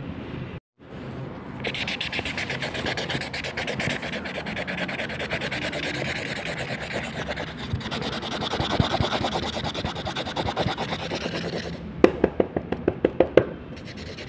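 Felt brush pen tip scrubbing rapidly back and forth on paper, a steady scratchy rubbing as colour is filled in, followed near the end by a quick run of sharper, separate pen strokes.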